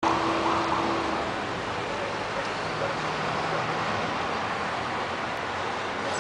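Steady city traffic noise, an even wash of passing vehicles, with a brief faint whine in the first second.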